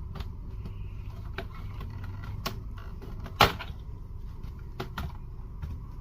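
Scattered small clicks and taps of a laptop being handled for an SSD upgrade, with one sharp, loud snap about three and a half seconds in, over a steady low rumble.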